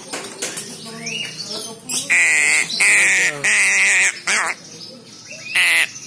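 Crow chick begging for food with harsh, loud squawking calls, several in a run around the middle and another near the end, with quieter calls between.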